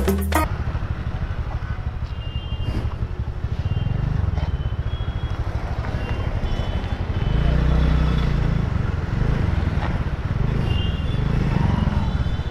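Background music cuts off about half a second in, followed by a TVS Ntorq 125 scooter's single-cylinder engine running at low speed in city traffic, with a steady low rumble that swells briefly about eight seconds in.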